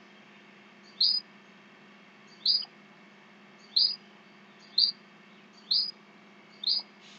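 A bird calling outdoors, repeating a short, high, upward-sweeping chirp about once a second, six times, over a faint steady low hum.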